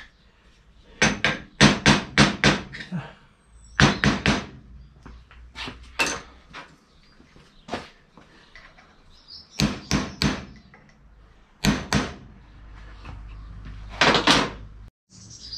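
Small hammer tapping the steel tabs of locking plates over the crown-wheel bolts of a Mini differential clamped in a vice, bending them up against the bolt heads to lock the bolts. The sharp metallic taps come in quick runs of several strikes, with short pauses between runs.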